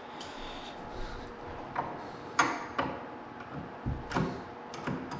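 A few sharp clicks and light knocks of a screw being set and turned into an IKEA cabinet panel with a magnetized hand screwdriver, the loudest knock about four seconds in.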